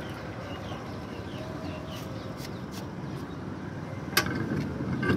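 Steel car wheel with its tyre being fitted onto the hub's wheel studs: handling noise, then a sharp metallic clack about four seconds in and another near the end as the wheel meets the hub.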